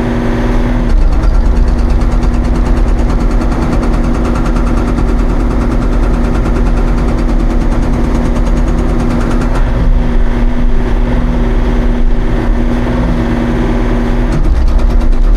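Hydraulic breaker hammer on a Hauyee 35c mini excavator pounding solid granite ledge in a fast, steady run of blows over the excavator's running engine.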